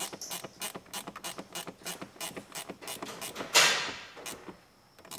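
Ratcheting wrench clicking steadily, about six clicks a second, as it runs nuts down to bolt a car's dash to the center console. The clicking stops about three and a half seconds in, followed by a louder scraping rush that fades within a second.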